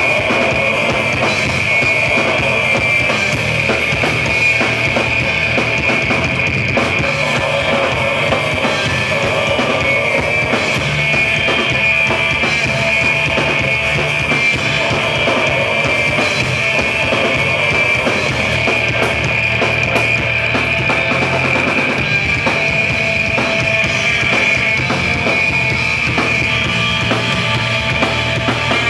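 Live hardcore punk band playing loud and dense: bass guitar, electric guitar and a driving drum kit, with no break.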